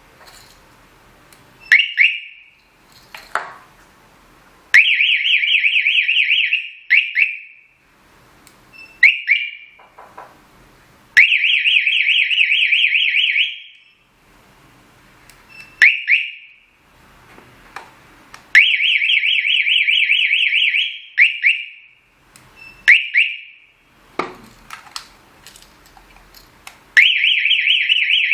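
Solar wireless alarm siren giving short one- and two-note chirps and four bursts of loud, fast-pulsing alarm tone, each burst two to three seconds long. Sharp clicks come between the bursts.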